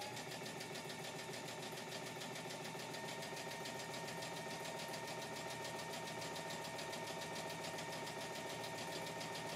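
Brother Innovis XV sewing machine running a straight stitch through fabric: a rapid, even ticking of the needle mechanism over a steady motor hum. It runs smoothly and is nice and quiet.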